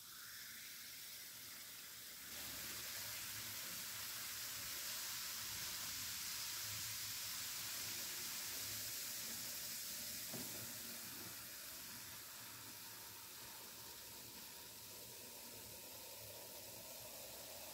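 Vinegar and baking soda fizzing as the mixture foams up: the hiss of many small carbon dioxide bubbles bursting. It grows louder about two seconds in and slowly dies down over the second half as the reaction settles.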